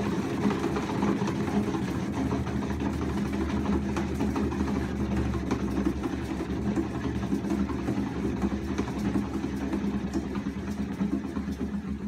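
Cat exercise wheel rolling under a running cat, a steady low rumble that fades as the cat slows near the end.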